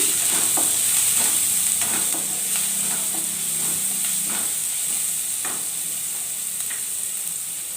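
Chopped onion, green chillies and curry leaves sizzling in hot oil in a pan, stirred with a spatula that scrapes against the pan now and then.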